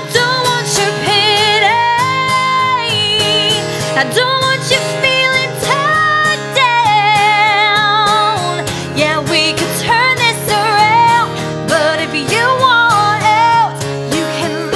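Woman singing a country-pop ballad with strong vibrato and sliding, held notes, over a strummed acoustic guitar.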